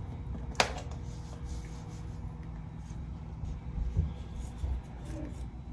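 Quiet handling of a salt container while salting a salad: one sharp click under a second in, then a few dull knocks near the end.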